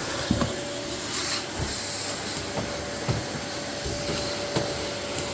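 Vacuum cleaner running steadily: an even whooshing noise with a constant whining tone, and a few light knocks.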